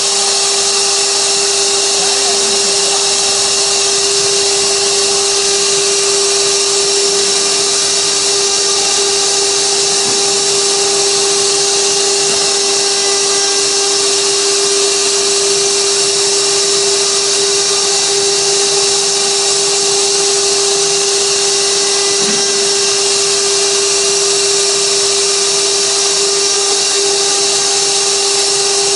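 6060 desktop CNC router's spindle running at a steady speed while engraving a 3D relief in wood: one constant whine over a steady hiss of cutting.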